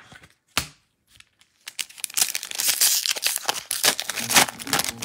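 Foil wrapper of a Topps Chrome trading-card pack being torn open and crinkled by gloved hands. Two sharp clicks come in the first second, then a loud, dense crackle of tearing foil from a little under two seconds in.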